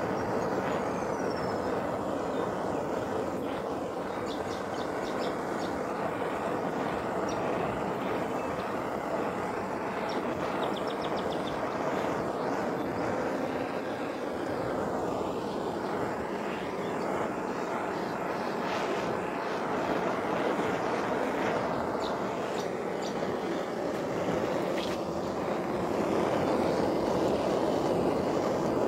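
Handheld gas blowtorch on a screw-on gas cartridge burning steadily with a continuous hiss as its flame scorches the surface of carved wood. The hiss grows a little louder near the end.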